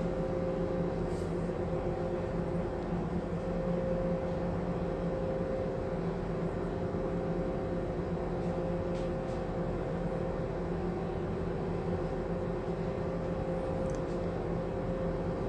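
Steady machinery hum aboard a ship, a constant drone with a few held tones in it.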